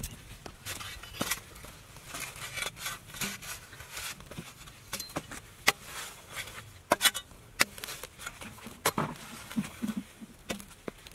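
A metal spade digging into hard, dry, cracked clay: irregular sharp clicks and scrapes as the blade strikes and pries at the soil and clods break loose and crumble.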